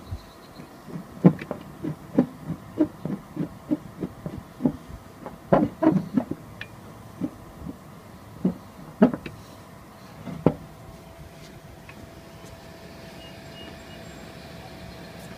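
Irregular light clicks and knocks of hands turning the leveling screws of a pyranometer and handling it on its metal mounting plate, a few of them louder. After about eleven seconds the clicks stop, leaving a faint steady hum with a thin tone.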